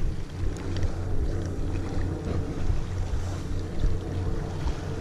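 Wind buffeting the microphone with a steady low rumble, over the wash of sea swell against rocks.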